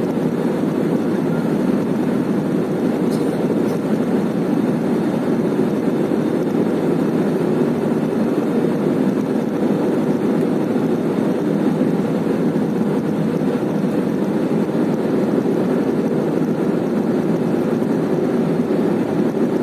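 Steady cabin noise of an Airbus A320 airliner heard from a passenger seat during landing: jet engines and rushing air blend into a loud, even, low rumble that does not change.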